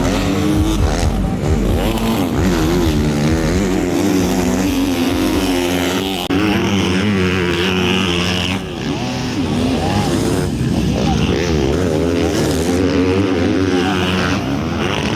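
MX2 motocross bike engines revving hard, the pitch rising and falling again and again with throttle and gear changes, with a brief drop in loudness about six seconds in.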